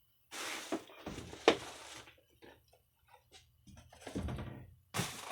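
Handling noises from a cardboard box being shifted by hand: rustling and scraping in short bursts, with one sharp knock about a second and a half in.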